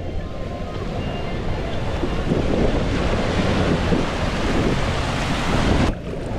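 Wave-pool surf rushing and washing in, swelling about two seconds in, with wind buffeting the microphone; it cuts off abruptly near the end.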